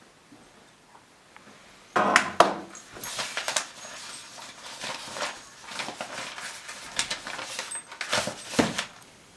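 Papers rustling and being shuffled on a desk, with light knocks and clinks of handling. It starts suddenly about two seconds in and runs on as an irregular run of short rustles.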